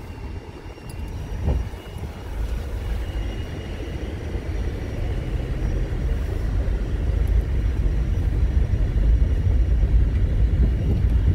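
Car driving slowly over a rough gravel road, heard inside the cabin: a low rumble of tyres and engine that grows louder, with a single thump about a second and a half in.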